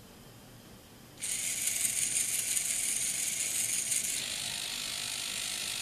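Two continuous-rotation hobby servos whirring steadily as they turn 3D-printed turntables. The whir starts about a second in, and its sharpest, highest part drops away about four seconds in.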